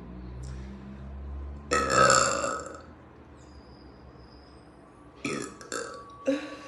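A woman burping loudly once, a belch about a second long, followed near the end by three short, quieter sounds.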